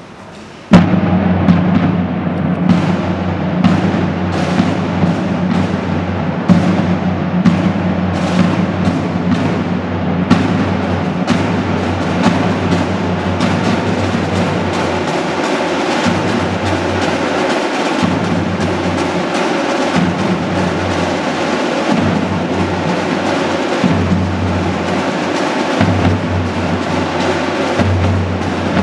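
Cadet marching band of drums and brass strikes up abruptly about a second in and plays a march, the drums keeping a steady beat under sustained horn notes.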